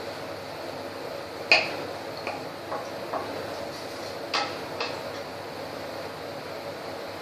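Wooden spatula stirring chickpea gravy in a kadai, knocking against the pan about six times, the sharpest knock about a second and a half in, over a steady hiss.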